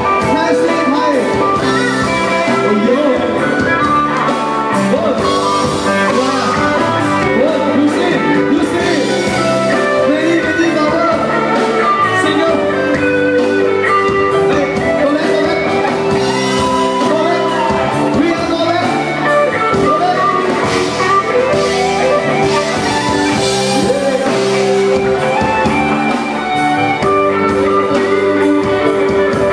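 Loud music with men singing into microphones over it.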